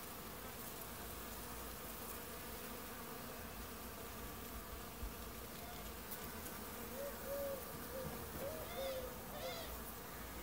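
Many insects feeding at flowering ivy, buzzing together in a steady hum. Near the end, a few short pitched calls rise and fall over the buzz.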